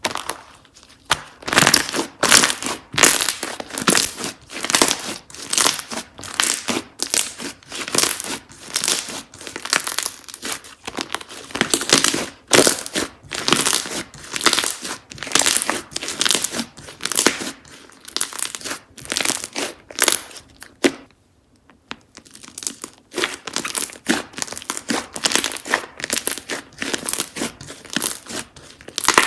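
Slime being squeezed, poked and stretched by hand: a run of short, sharp, squelchy-crinkly noises, roughly two a second, with a brief pause about three-quarters of the way through.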